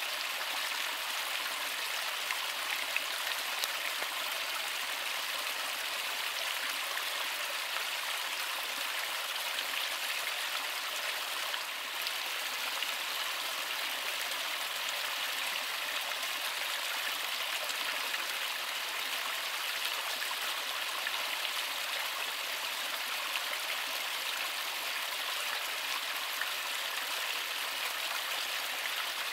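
A small stream running, a steady, even rush of flowing water with most of its sound in the higher range.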